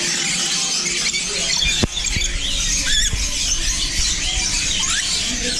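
Many caged parrots, lories and parakeets, screeching and squawking over one another. There is a sharp knock about two seconds in.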